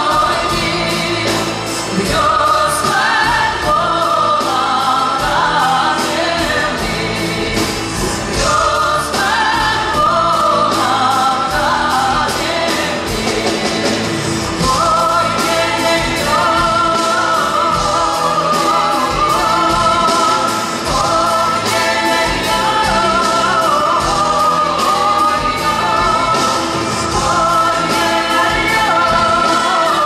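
A woman singing a song live into a microphone over band accompaniment with a steady beat, amplified through a concert hall's sound system.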